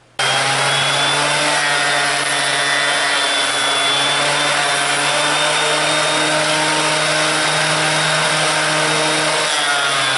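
Small benchtop jointer (planer) running steadily while a weathered piece of driftwood is fed across its spinning cutterhead. The sound starts abruptly at full level: a steady motor hum under a broad shaving noise.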